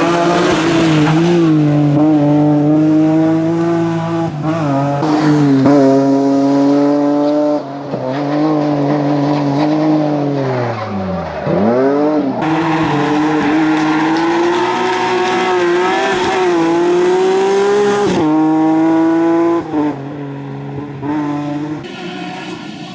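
BMW rally car engine revving hard through repeated gear changes, its pitch climbing and dropping in steps. About halfway through, the revs fall steeply and then climb again.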